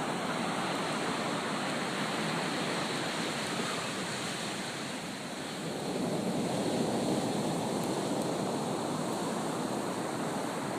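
Ocean surf breaking, mixed with wind: a steady rushing noise that eases about five seconds in and swells again.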